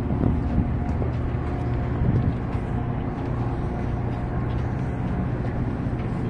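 Steady low hum of a Metra diesel commuter train standing at the platform, its engine and onboard equipment running at idle.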